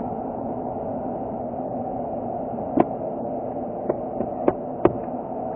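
Boeing 737-800's CFM56-7B jet engines running steadily at taxi power, a continuous even rumble. A handful of sharp clicks fall in the second half.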